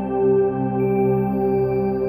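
Ambient background music of long, held tones, with a higher note joining about a second in.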